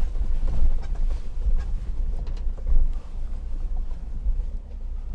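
A JMC Yusheng's 2.4-litre turbo-diesel engine running at low revs as the vehicle crawls in low-range four-wheel drive, a low rumble inside the cab, with faint scattered knocks and creaks from the chassis.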